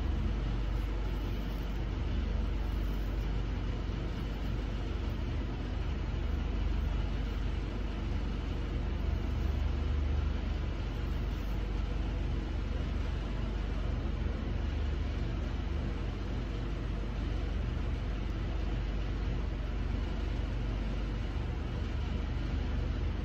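Parked semi truck's diesel engine idling: a steady low rumble with no change.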